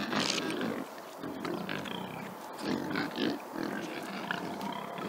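Angler Saddleback pigs grunting in short rough clusters, loudest at the start and again about three seconds in.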